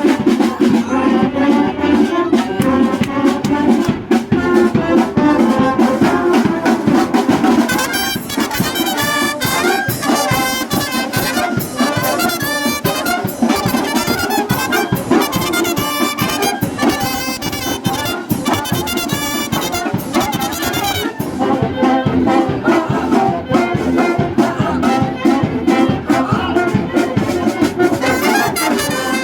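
A Mexican wind band playing, with trumpets and trombones carrying the tune over a steady drum beat. The arrangement changes about eight seconds in and again about twenty-one seconds in.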